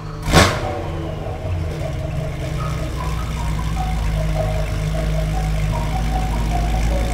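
BMW E9X M3's 4.0 L V8 idling steadily through an aftermarket catback exhaust, slowly growing a little louder. A single sharp thump comes about half a second in.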